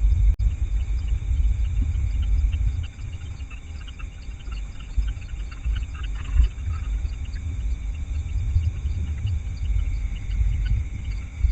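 Night insects, crickets, chirring steadily in a high, rapid pulse over a low rumbling noise on the microphone.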